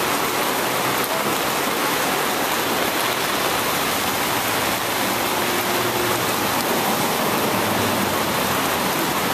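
Steady hiss of a light rain shower falling on wet street pavement and parked vehicles.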